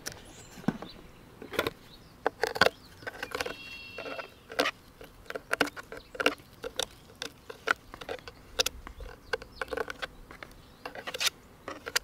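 Irregular small clicks and taps of hands handling the feeder's hard plastic lid. About three and a half seconds in there is a short high-pitched tone lasting under a second.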